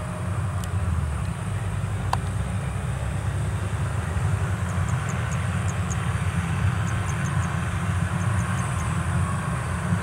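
WD102Pro combine harvester engine running steadily under load as the machine cuts standing rice, a continuous low drone. Faint, short, high chirps come in small runs in the second half.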